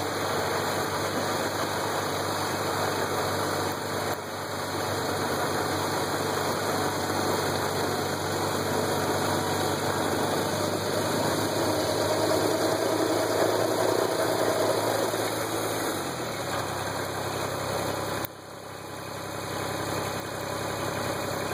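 Kubota BX24 tractor's three-cylinder diesel engine running under load, driving a BX2750D front-mounted snow thrower that churns and throws snow. About 16 seconds in the engine note drops in pitch, and after a sudden dip in level about 18 seconds in the engine runs steadily at a lower level.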